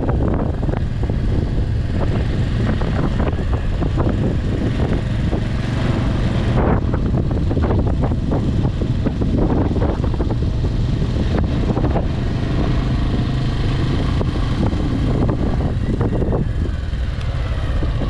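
A vehicle driving along, its steady engine and road rumble mixed with wind buffeting the microphone in uneven gusts.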